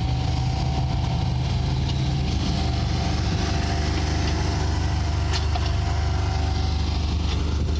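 Mustang mini excavator's turbo-diesel engine running steadily as it works, with a steady higher tone held over it and a brief click about five seconds in.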